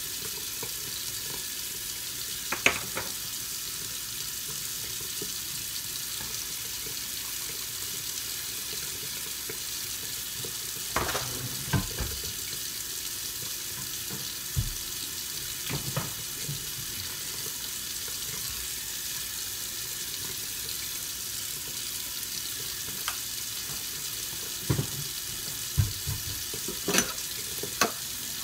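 Steady sizzling hiss of grits cooking in a stainless steel pan on a stove, with a few scattered clinks and scrapes of a spoon against the pan, most of them near the end.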